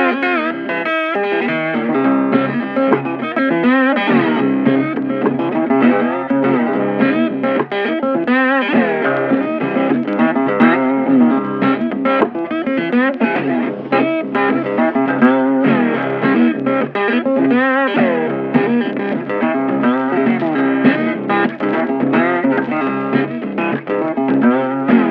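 Background music: electric guitar playing a busy, continuous melody.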